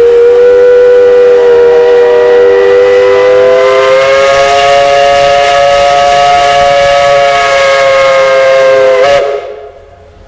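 Steam locomotive chime whistle blowing one long, loud blast, several notes sounding together. Its pitch creeps up slightly partway through, and it cuts off about nine seconds in.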